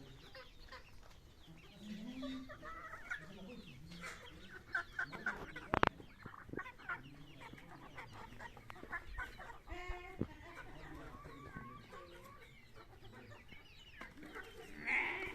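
Chickens clucking, with many short scattered calls. A single sharp knock sounds about six seconds in.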